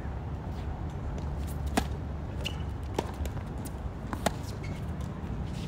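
Tennis rally on a hard court: a few sharp pops of the ball being struck by rackets and bouncing, the loudest about four seconds in as the near player hits a topspin forehand. A steady low rumble runs underneath.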